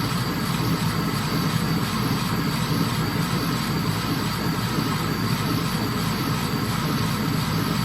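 CO2 laser engraver running while it marks a logo into bamboo: a steady mechanical whir of its fans and motors with a faint regular pulsing about three times a second.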